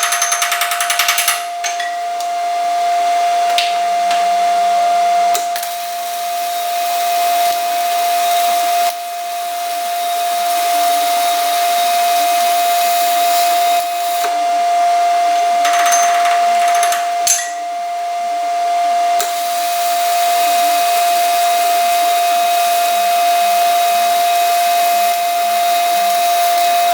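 Arc welding: the steady frying hiss of the welding arc, which breaks off and restarts several times, over a constant steady tone.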